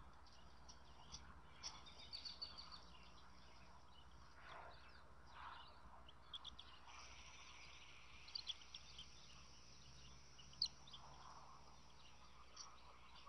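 Faint outdoor ambience with scattered short, high bird chirps over a steady low hiss, plus one sharp click near the end.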